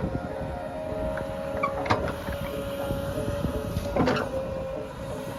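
JCB 3DX backhoe loader's diesel engine running steadily, with two sharp metallic knocks about two seconds apart.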